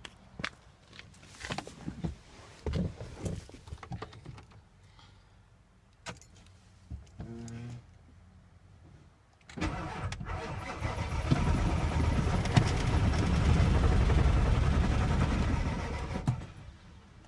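Scattered clicks and a short tone, then about halfway in a 7.3 L Power Stroke V8 diesel cranking on its starter with an even, pulsing rhythm for about seven seconds. The engine turns over but does not fire, and the shop suspects a failed injector driver module (IDM).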